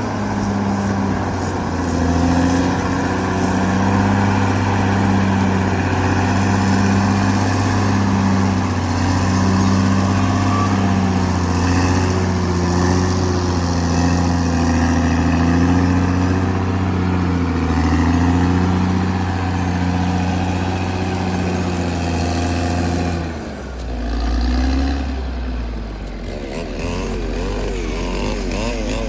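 Caterpillar D6R XL bulldozer's diesel engine running steadily under load. About 23 seconds in it drops in pitch and level, and near the end a wavering sound rises over it.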